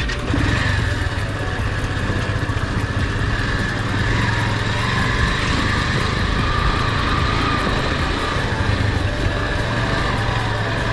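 Motorcycle engine running steadily under way on a rough dirt track.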